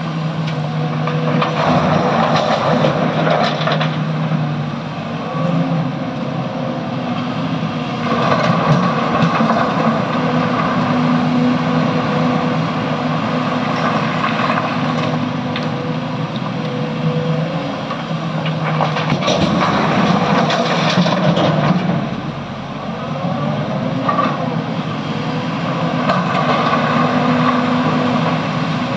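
SANY excavator's diesel engine running under working load while loading a truck, its sound swelling several times as the machine works.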